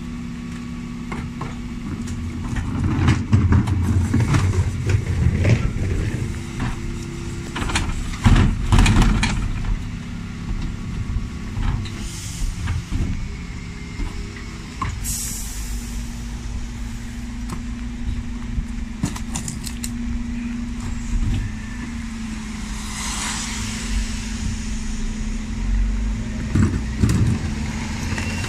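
Dennis Elite 6 refuse lorry's engine running steadily while its Terberg bin lift raises and tips wheelie bins, with clattering and heavy knocks as bins strike the lift. There is a short air hiss about halfway through.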